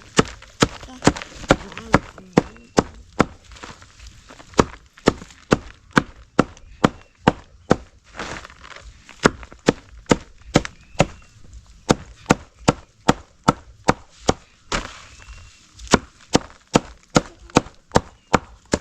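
Kale and cassava leaves being chopped with a blade on a wooden surface: a steady run of sharp chops, about two to three a second, with a few short pauses.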